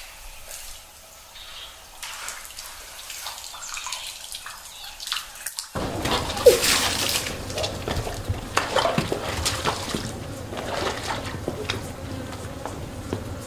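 Water splashing and trickling in many small, irregular splashes. About halfway through the sound cuts abruptly to a fuller, louder stretch of the same kind of splashing.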